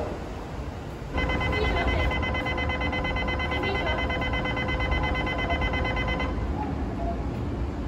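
A station platform departure buzzer sounds one steady tone for about five seconds, starting about a second in and cutting off abruptly, over the low rumble of a train standing at the platform.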